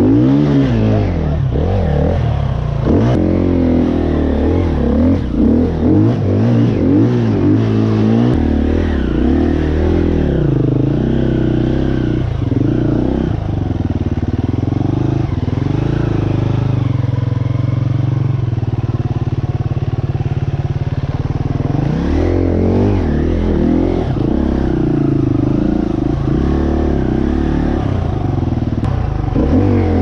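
Enduro dirt bike engine revving up and down as it is ridden along a muddy rutted trail, the revs rising and falling over and over. About halfway through it holds a steadier, lower note for several seconds, then revs again.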